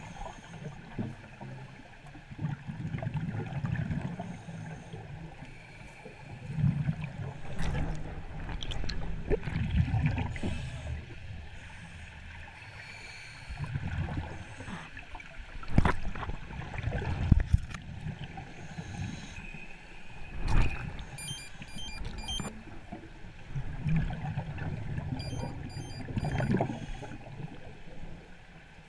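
Water heard from a camera held underwater: muffled gurgling and sloshing with low rumbles that swell and fade, and a few sharp knocks past the middle.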